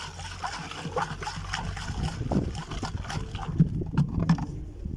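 Domestic pigeons cooing low several times, with light knocks and water sloshing.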